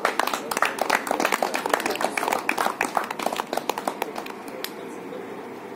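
A small group of people clapping, the claps thinning out and stopping about four and a half seconds in.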